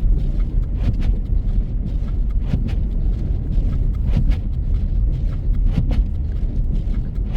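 Car driving on a snow-covered road: a steady low rumble of tyres and engine, with scattered small clicks and knocks.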